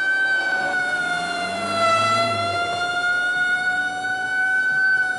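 Ambulance siren sounding one steady held tone that dips slightly in pitch about two seconds in and then rises back, with a low rumble briefly under it.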